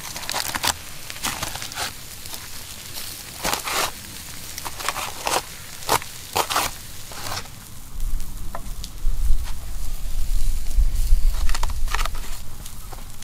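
Open grill fire over hot coals crackling and popping with steaks searing on it, sharp irregular pops. About eight seconds in a louder low rumble joins and the pops grow sparse.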